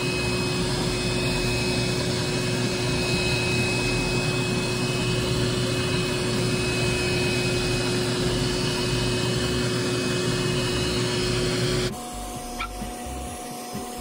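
Vacuum cleaner running steadily with a hose nozzle held to dusty air conditioner condenser coil fins, sucking the dirt off. About twelve seconds in the sound drops abruptly to a quieter hum at a different pitch.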